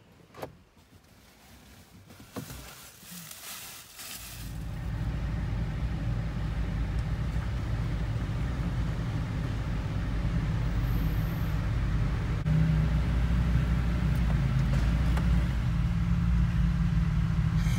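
Jeep engine running at low speed on a rocky dirt trail, heard from inside the vehicle as a steady low rumble. The rumble comes in about four seconds in and gets louder about twelve seconds in. Before it there are a few light knocks over near-quiet.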